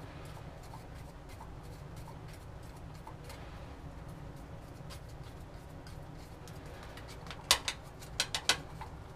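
Metal micro spatula scraping and clicking against a small plastic funnel and glass vial while working sticky powder through, over a steady low hum. Faint small ticks run throughout, and a quick cluster of about five sharp clicks comes near the end.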